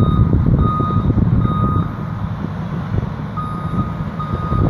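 Reversing alarm on heavy demolition machinery, a steady single-pitch beep repeating a little under once a second with a pause of about a second and a half midway, over a loud low engine rumble.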